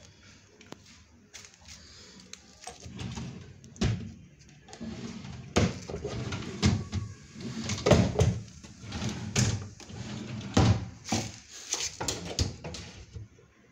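Drawers of a laminated wood office desk being worked by hand, sliding open and pushed shut, with a string of knocks and thuds starting about three seconds in. The loudest bumps come about eight and about ten and a half seconds in.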